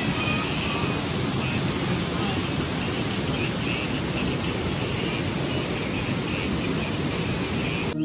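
Waterfall and the rocky stream below it, rushing water as a steady, even roar.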